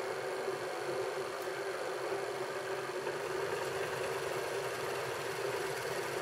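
Vertical milling machine's spindle running steadily as a half-inch drill bit is fed into a wooden wheel, drilling a pin hole.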